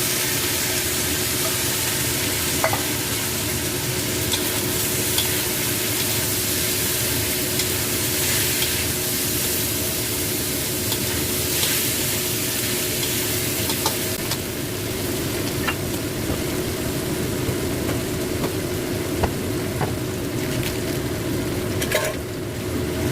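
Stir-fry sizzling in hot oil in a pan while it is stirred with a spatula, with scattered light clicks of the spatula against the pan.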